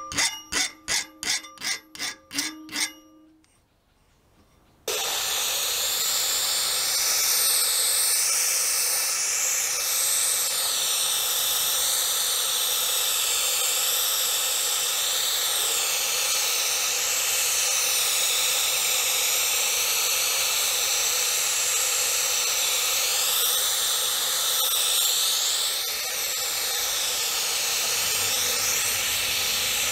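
An aerosol spray-paint can being shaken, its mixing ball clicking about three times a second, then a long continuous hiss of spray paint being applied. The hiss wavers as the can sweeps back and forth.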